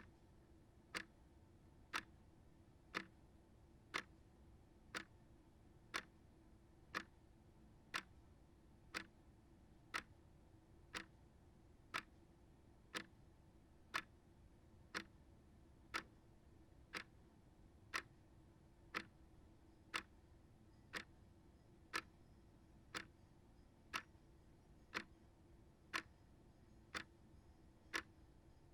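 Small shelf clock ticking steadily, one even tick a second.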